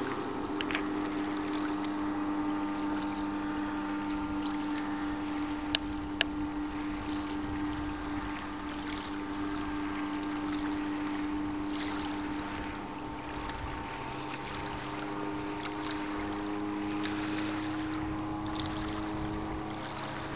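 Outboard motor of a RIB running at speed, a steady drone heard across open water over a hiss of wind and water, dipping a little in the middle and coming back. Two short sharp clicks sound about six seconds in.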